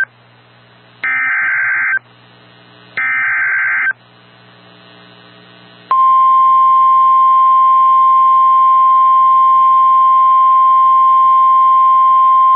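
Emergency Alert System broadcast from NOAA Weather Radio: two buzzy bursts of SAME digital header data, about a second each with a second's gap, followed about six seconds in by the steady 1050 Hz weather-radio warning alarm tone. Together they announce a new warning. A low hum is heard in the gaps between bursts.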